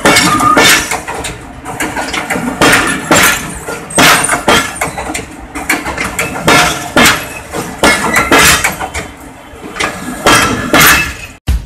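Bangladesh Railway passenger coaches passing close at speed, their wheels clanking and banging on the rails in loud, irregular strikes. Just before the end the sound cuts off abruptly and drum music begins.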